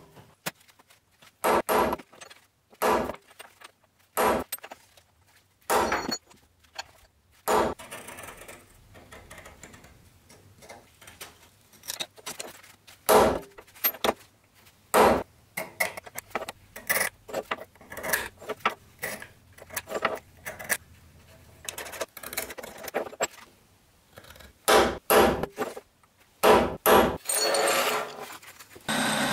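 Hammer striking small steel brackets on a steel workbench: a long series of sharp, irregular metallic blows with short ringing, some in quick runs, with lighter metal clatter between them.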